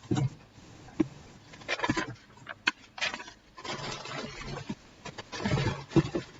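Packaging being handled and opened: irregular rustling and scraping with a few sharp clicks and knocks.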